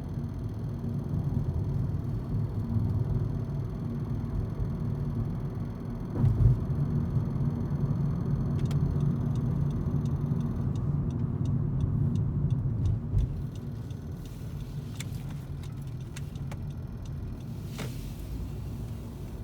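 Cabin noise of a 10th-generation Honda Civic on the move: a steady low road-and-engine rumble with a bump about six seconds in and scattered faint clicks or rattles in the second half. The car has an unexplained weird noise from the driver's side that the owner is recording.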